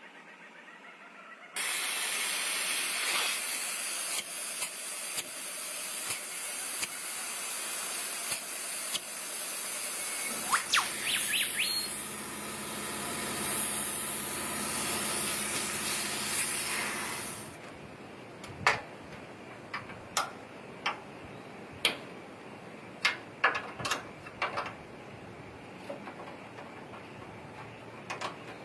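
A loud, steady hiss of spray starts suddenly and cuts off suddenly after about sixteen seconds, with a low motor hum joining it for the last several seconds. It is followed by a series of sharp single clicks, about one a second.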